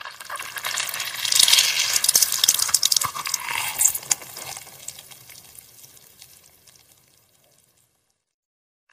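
Half a blood orange crushed in a hand: wet squelching and crackling of the pulp and peel as the juice squirts out. Loudest in the first four seconds, then fading away.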